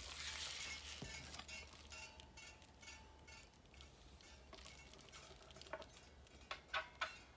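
Faint metallic clinking and small clicks of an Allen key working the bridge saddle height screws on a Squier Affinity Stratocaster, with a few sharper clicks near the end.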